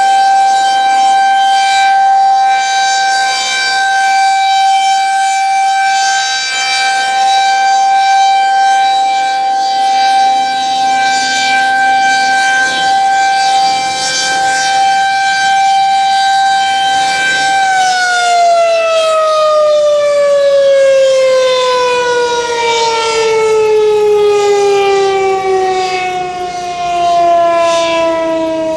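Federal Signal 2001-SRNB electromechanical siren sounding a steady single tone for its monthly test, then winding down about eighteen seconds in, its pitch falling smoothly as the rotor slows.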